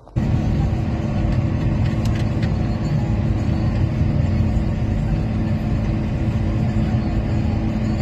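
A vehicle engine running steadily under way, with a low rumble and a steady hum.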